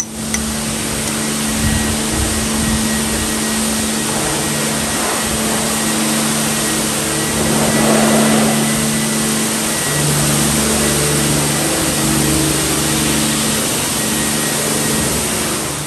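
Car wash machinery running steadily: a loud, even rushing hiss with a low hum underneath, the sound of a car wash bay in use with its pressure washer and vacuum going.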